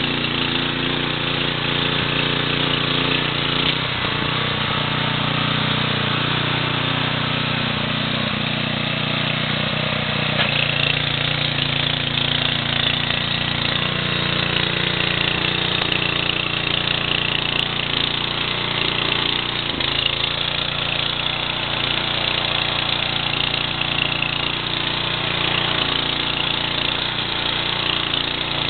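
Viking HB 585 rotary tiller's Kohler single-cylinder four-stroke engine running steadily under load as its tines churn through soil. The engine note sags briefly twice, about four seconds in and again near twenty seconds.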